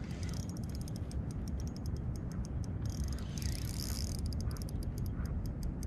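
Shimano Stradic spinning reel clicking irregularly, several sharp ticks a second with a denser hissing stretch about halfway, while a hooked speckled trout is played. A low steady rumble runs underneath.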